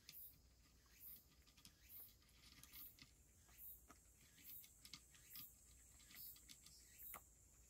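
A cat chewing food from a dish: faint, irregular small clicks and crunches. A faint high pulse recurs about once a second behind them.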